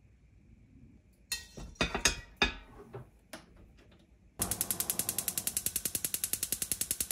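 A few sharp knocks a second or two in, then from about four seconds a gas stove's spark igniter clicking rapidly and evenly, about fifteen clicks a second, as the burner is lit under a pot of water.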